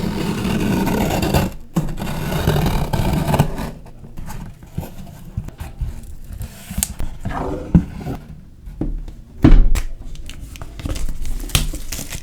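Keyboard box being unpacked: cardboard and packaging scraping and sliding for the first few seconds, then scattered handling knocks and clicks, with one loud thump about nine and a half seconds in.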